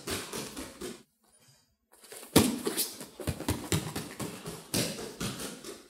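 Bare feet slapping quickly on foam gym mats during a sprint off the floor, with a hard thump about two and a half seconds in. The slaps stop for about a second early on, then resume in a quick run.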